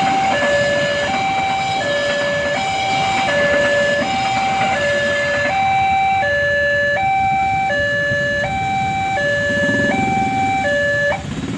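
Railway level-crossing warning alarm sounding a two-tone electronic signal, alternating between a lower and a higher tone about every 0.7 s over a low rumble, and cutting off suddenly near the end as the crossing clears.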